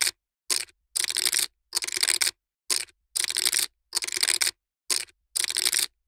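Poker chips being shuffled by hand: repeated bursts of rapid clicking clatter, each lasting up to about half a second, with short silent gaps between. The bursts fall in a repeating pattern of one brief burst followed by two longer ones.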